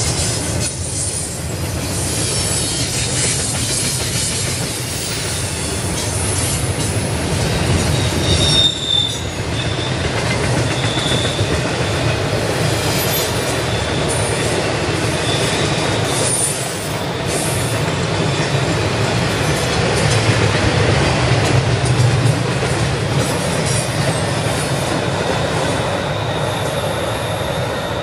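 CSX intermodal freight train's cars rolling past close by, a steady rumble of steel wheels on the rails. A high wheel squeal sets in about eight seconds in and comes and goes after.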